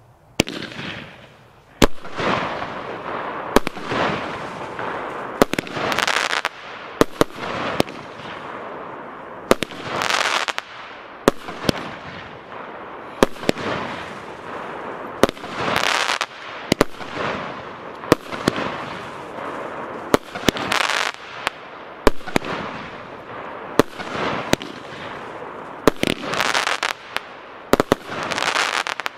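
A 19-shot, 30 mm consumer fireworks battery (cake) firing in sequence: sharp reports about every one and a half seconds, each followed by about a second of crackling hiss from the bursting stars.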